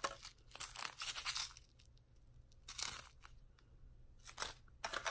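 Small plastic packets of a DIY candy kit crinkling and rustling as they are handled, in a run of short rustles early on and a few single ones later.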